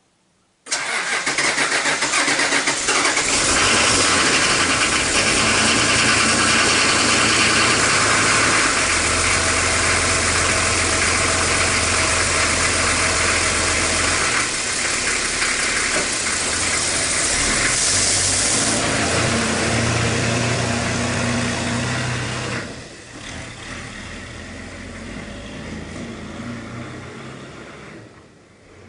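Diesel 4x4 engine starting suddenly under a second in, then running at idle. About 22 seconds in the sound drops sharply and fades as the vehicle drives off.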